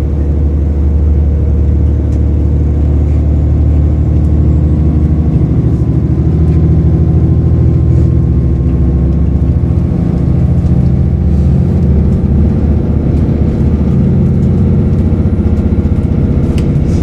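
Moving diesel train heard from inside the carriage: a steady low engine drone over the running rumble of the wheels on the rails.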